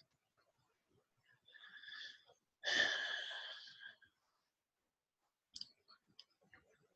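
A person's audible breath close to the microphone: a faint short breath, then a longer, louder breath about three seconds in, followed by a few small mouth clicks.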